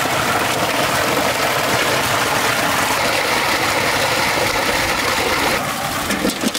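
Water gushing from a pipe and splashing steadily into a wok of water as raw quail are rinsed by hand.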